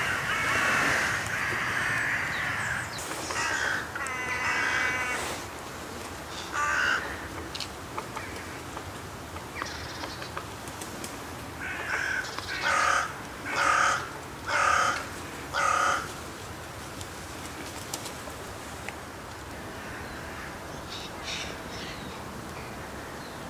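Carrion crows cawing repeatedly, loudest in the first few seconds and in a run of four caws about a second apart near the middle. The calls come while a bird of prey is about, which the observer takes for a falcon or sparrowhawk.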